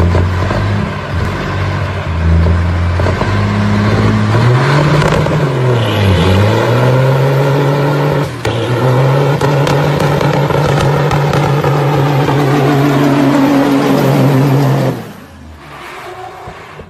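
Big-rig semi truck's diesel engine revving hard under load during a burnout, belching black smoke. Its pitch falls and climbs back about six seconds in, then holds high and steady until the sound drops away about fifteen seconds in.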